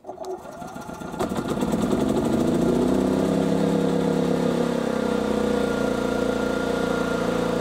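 Hyundai HY3200SEI inverter generator's 210cc four-stroke petrol engine being remote-started. The electric starter cranks for about a second, then the engine catches, revs up over the next second or so and settles into a steady run.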